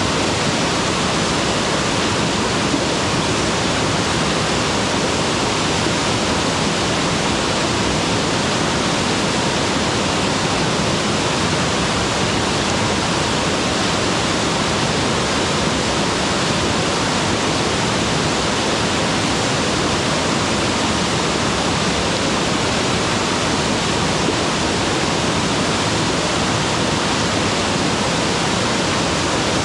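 Mountain waterfall pouring steadily, a loud, even rush of falling water with no breaks.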